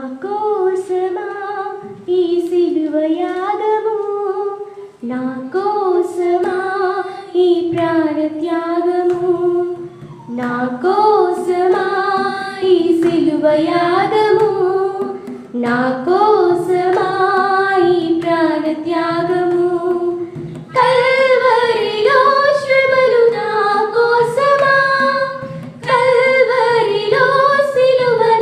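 Several young women singing a Telugu Christian worship song together in unison, phrase by phrase, with short pauses for breath. Some of them clap their hands in time.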